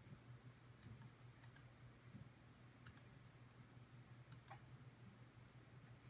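Faint keystrokes on a Corsair Strafe RGB mechanical keyboard with Cherry MX Brown switches: four separate key presses, each heard as two quick clicks, spaced one to one and a half seconds apart.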